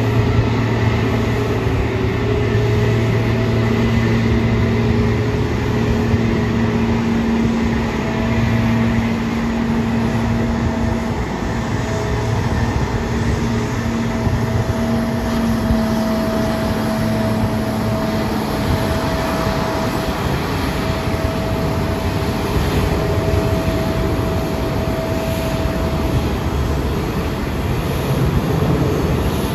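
Jet airliner engine noise: a loud, steady roar with several steady hums underneath that fade out about two-thirds of the way through.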